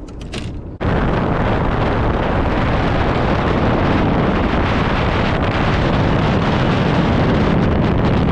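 Boat running at speed between fishing spots: loud, steady wind rush over the microphone with the outboard motor's drone underneath. It starts abruptly about a second in.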